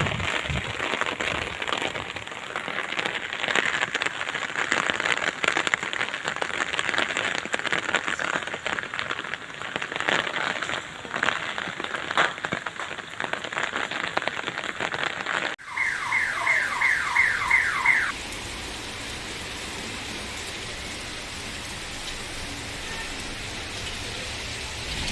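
Rain spattering close to the microphone, a crackling noise full of sharp ticks, cuts off abruptly about two-thirds of the way through. A car alarm then sounds a quick run of about seven rising chirps over two seconds, followed by the steady hiss of rain.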